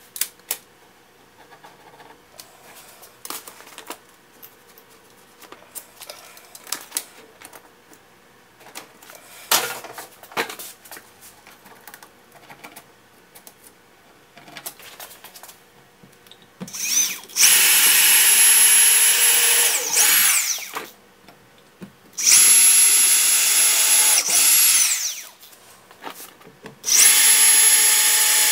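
Cordless drill boring pilot holes overhead into a wooden floor joist: three runs of about three seconds each in the second half, each spinning up and winding down with a steady high whine. Before the drilling there are scattered light clicks and taps.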